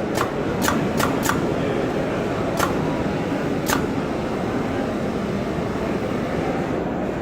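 Shirt-collar turning machine running with a steady mechanical hum, with a handful of short sharp clicks in the first four seconds.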